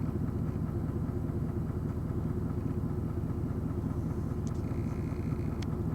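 A vehicle engine running steadily at idle, a low even hum, with two faint ticks near the end.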